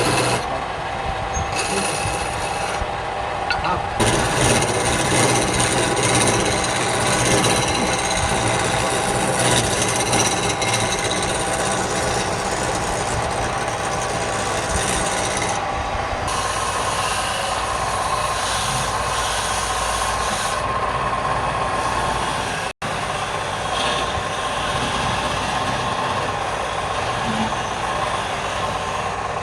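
Wood lathe running with a turning tool cutting into the spinning wood: a steady motor hum under a rasping scrape. The sound shifts abruptly a few times and cuts out for an instant.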